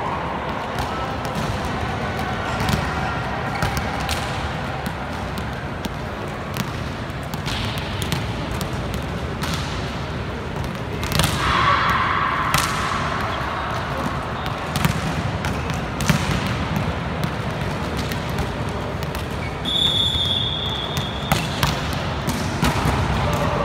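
Volleyballs being struck and bouncing on a hard sports-hall floor, a string of sharp slaps and thuds that echo in a large hall, with players calling out. A short whistle blast sounds about twenty seconds in.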